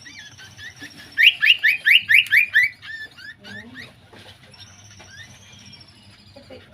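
Songbird calling: a quick run of about nine loud rising whistled notes, some six a second, starting about a second in, with a long thin high whistle held near the start and again in the second half.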